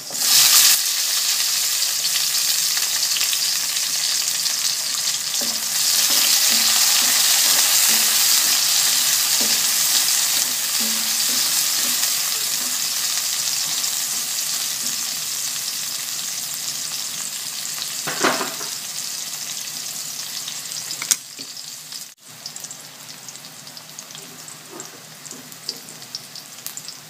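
Sliced red onions and garlic sizzling in hot oil in a wok. The sizzle is loud as soon as the onions go in, swells again a few seconds later and then slowly dies down, with a wooden spatula stirring now and then.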